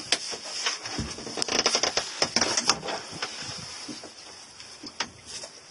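Irregular clicks and rustles of close handling, thickest in the first half, with a single sharp click near the end, over a steady high hiss.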